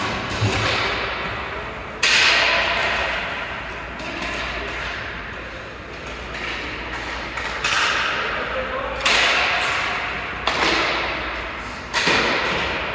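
Ice hockey game in a rink: about five sharp knocks against the boards, each leaving a long echo that fades away, over the general noise of play.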